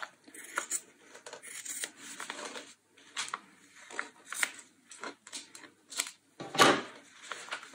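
Fabric scissors cutting thick coat fabric along a pinned paper pattern: a series of irregular, crisp snips, the loudest about six and a half seconds in.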